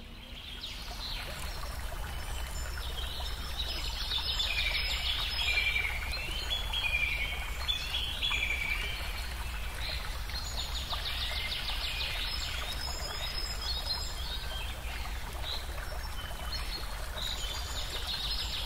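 Birds chirping and trilling in short repeated phrases, many falling in pitch, over a steady low rumble.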